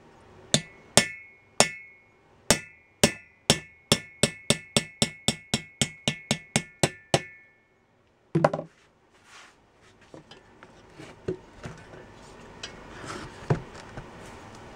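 Hammer striking a metal drift held against an air-cooled VW Beetle cylinder head, driving a part out of the head: about twenty sharp, ringing metal strikes over some seven seconds, quickening in the middle. Then a single duller knock, followed by faint clinks of handling.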